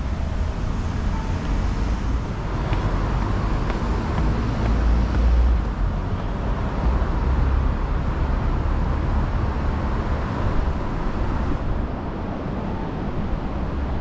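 Busy city street traffic: cars and trucks running past in a steady, low rumble of engines and tyres.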